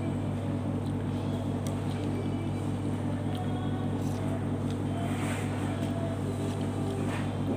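A steady low mechanical hum, unchanging throughout, with a few faint slurps of noodles in the second half.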